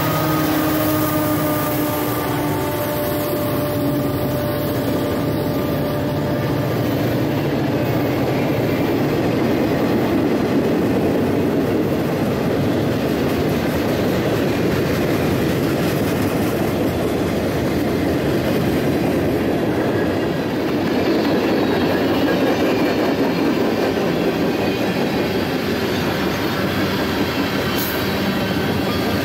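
A freight train rolling past close by: its EMD diesel locomotives pass with a steady engine hum that fades over the first few seconds. Then the freight cars go by with a continuous rumble of steel wheels on rail and a clickety-clack over the rail joints.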